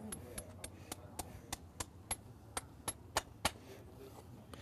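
Farrier's hammer tapping a horseshoe nail into the hoof wall: a run of sharp, light metallic strikes, about three a second, that grow harder to the loudest a little after three seconds in, then stop.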